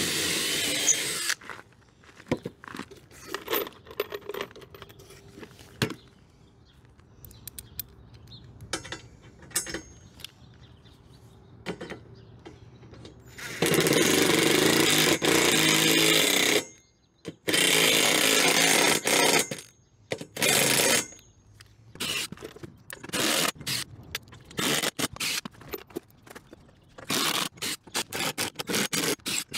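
Ryobi cordless impact driver with a socket driving bolts through a steel rail into a wooden door. It fires in a short burst at the start, two longer runs in the middle, then a string of short trigger bursts near the end.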